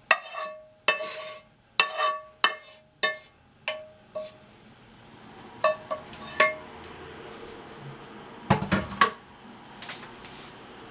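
Metal cookware knocking together: a frying pan and utensil tapped repeatedly against the rim of a cooking pot, each knock ringing briefly. About two knocks a second for the first four seconds, three more around six seconds in, then a cluster of heavier clunks near the nine-second mark.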